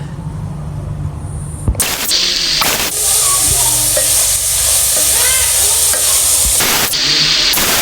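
Food sizzling in hot oil in a pan: a loud, steady frying hiss that starts suddenly about two seconds in.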